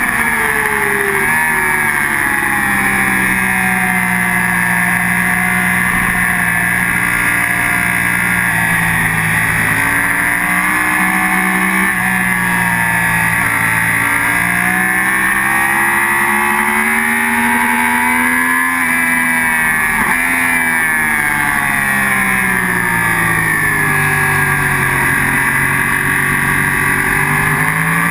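Sport motorcycle engine running hard on a race track, heard from a camera mounted on the bike. Its pitch climbs and falls again and again, with sudden steps as gears change, over a steady rush of wind.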